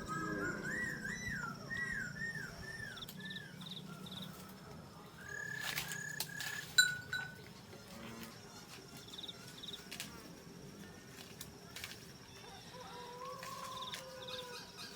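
Farm animals calling: a quick run of short rising-and-falling calls in the first few seconds, a few more about six seconds in with one sharp click, and a longer held call near the end.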